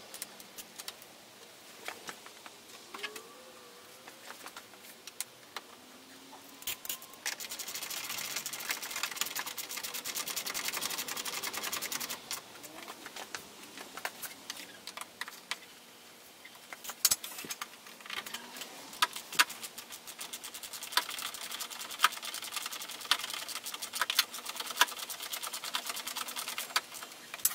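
Hands fitting a 3D-printed plastic air inlet against a car's radiator support: scattered plastic clicks and knocks, with a stretch of fast, even ticking about a third of the way in and denser ticking with sharper clicks in the second half.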